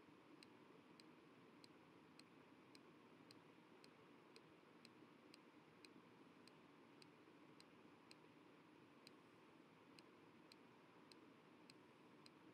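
Near silence: faint room tone with a soft, even ticking about twice a second.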